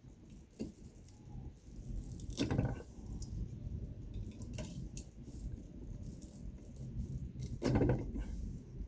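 Pliers working copper loose from scrap metal: metal clicking and rattling, with two louder crunching scrapes, one about two and a half seconds in and one near the end.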